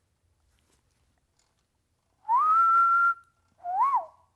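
A person whistles a two-note wolf whistle: the first note glides up and holds for about a second, the second rises and drops away. The breath is audible around each note.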